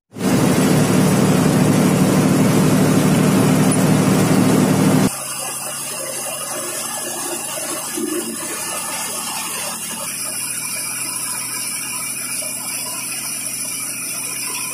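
Diesel bus engine and road noise heard from inside the cabin of a moving MSRTC bus. It is loud and rushing for about five seconds, then drops abruptly to a quieter, steady drone.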